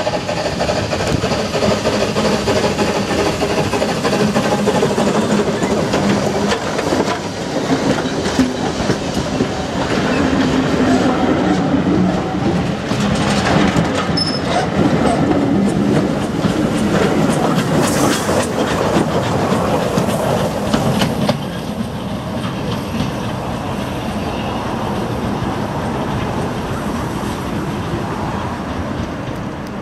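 An industrial steam tank locomotive hauling coaches passes close by, the coach wheels clattering over the rail joints. About two-thirds of the way through, the sound drops suddenly to a quieter, more distant running train.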